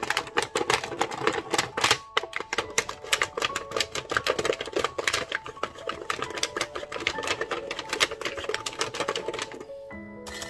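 A steel dent rod taps rapidly against the brass bell of a Cannonball alto saxophone, many small metallic taps a second, knocking a dent out of the bell. The tapping stops shortly before the end.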